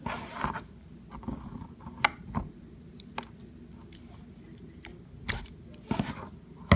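Scissors snipping through a beaded plastic bracelet, a few sharp separate snips and clicks, with loose beads clicking as they fall.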